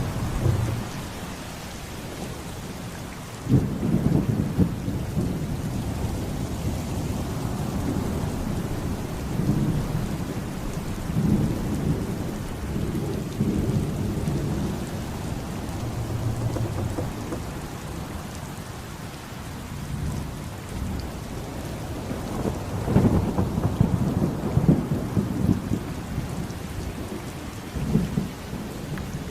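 Thunder rolling over steady heavy rain. A peal breaks in suddenly about three and a half seconds in, and another heavy rolling stretch comes near the end.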